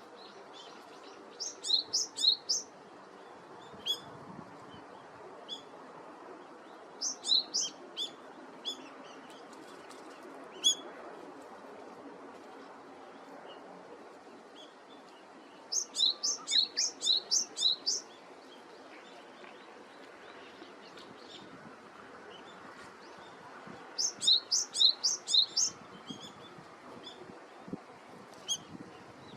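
Japanese tit singing: four short bouts of quick, repeated notes that alternate high and lower, several seconds apart, over a steady background hum.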